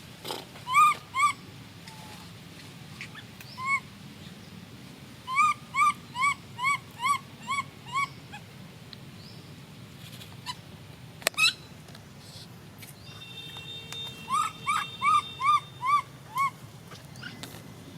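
Monkey calling in runs of short high calls, each rising and falling in pitch, about three a second: a pair near the start, a run of seven or eight around the middle, and another run of six near the end. A single sharp click about eleven seconds in.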